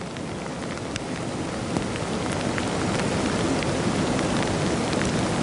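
Rain falling hard, with scattered drops ticking close by, growing steadily louder.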